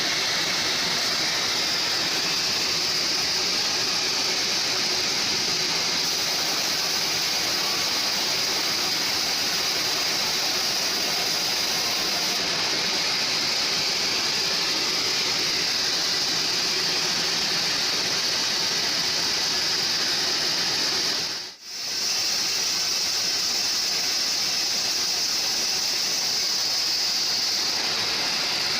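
Home-built band sawmill running, a loud, steady, even noise of the blade and its drive. It cuts out for a split second about three-quarters of the way through, then carries on as before.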